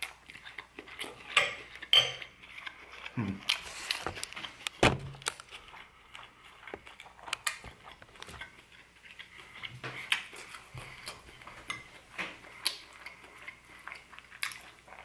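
Metal spoon clinking and scraping in a soup bowl of pozole: a string of short, irregular clicks as it is dipped and stirred.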